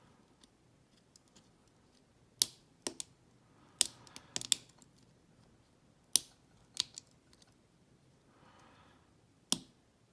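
Sharp metallic clicks of a wire pick working the levers inside an old lever padlock, about ten clicks in small irregular clusters.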